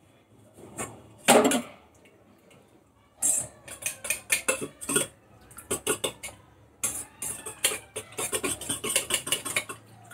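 Kitchen utensil clinking against a mixing bowl. There is a clatter about a second in, then from about three seconds in a run of quick, irregular clinks typical of stirring a mixture.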